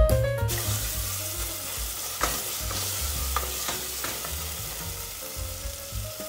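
Sliced onions and tomatoes sizzling in hot oil and ghee in a pressure cooker as a wooden spatula stirs them, with a few scrapes and knocks of the spatula against the pot about two to four seconds in.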